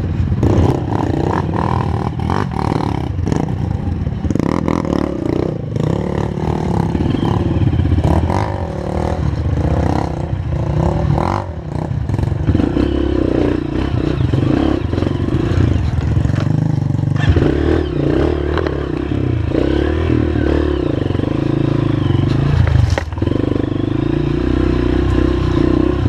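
Honda CRF230 trail bike's single-cylinder four-stroke engine running on a rocky, rutted trail, its pitch and level rising and falling as the throttle is worked, with scattered knocks and clatter from the bike over the rocks.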